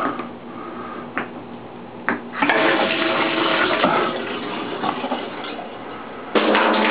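Bathtub shower turned on to test a just-refitted fitting: water comes on about two seconds in and keeps running, then jumps suddenly louder near the end, the sound of water rushing out of the shower.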